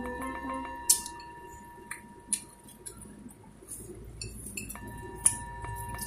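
A few scattered sharp clinks and clicks of dishes while eating by hand. The loudest come about a second in and about five seconds in, under faint background music that drops out early and returns near the end.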